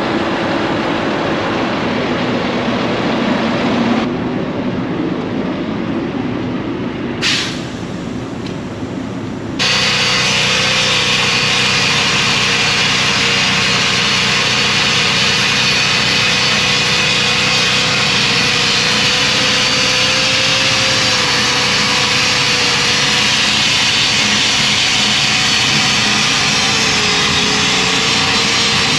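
An angle grinder starts up about ten seconds in and grinds steadily on steel, with a slightly wavering whine. It is cleaning the weld off a semi-trailer axle where the old brake spider was cut away, taking it back to bare metal for the new spider. Before it starts there is a steady mechanical noise with a short burst partway through.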